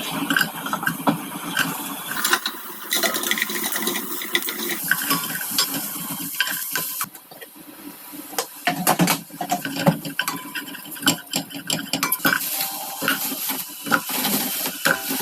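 Kitchen utensils clinking, knocking and scraping against cookware while food is being stirred and handled, in many short irregular clicks.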